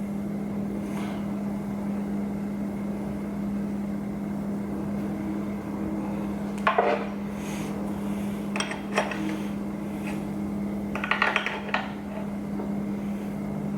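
Metal hand tools clinking against metal parts, in three short clusters of sharp clinks, over a steady low hum.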